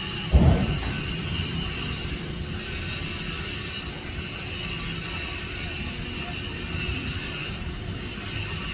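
Steady outdoor background noise: a low rumble under a faint, continuous high-pitched hum, with one loud low thump about half a second in.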